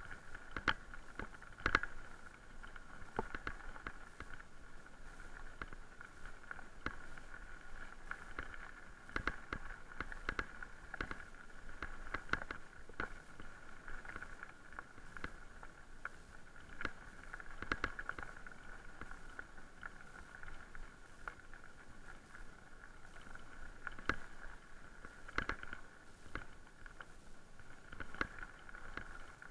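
Electric mountain bike rolling over a loose gravel track: tyres crunching on the stones, with a steady whine and frequent sharp knocks and rattles as the bike jolts over the surface.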